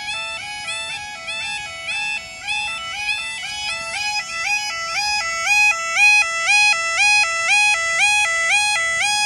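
UK level crossing warning alarm: an electronic two-tone yodel sounder alternating steadily between a lower and a higher tone while the barriers are down. It grows louder from about halfway through.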